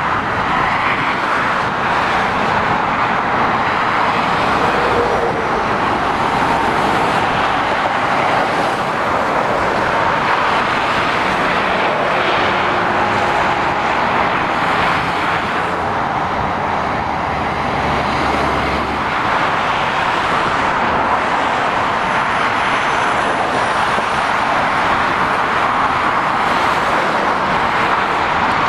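Steady traffic noise of heavy lorries and cars passing at speed, an even wash of sound with no single standout event.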